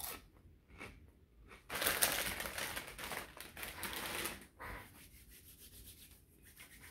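Doritos 3D Crunch puffed corn snack being chewed close to the microphone: a run of loud, crisp crunching lasting about two and a half seconds, starting a little under two seconds in, with a few softer crunches before and after it.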